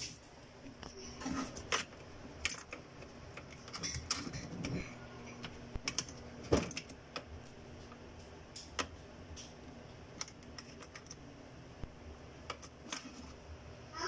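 Irregular small metallic clicks and taps, with a few louder knocks, from a hose clip being worked and tightened on a washing machine's drain hose coupling.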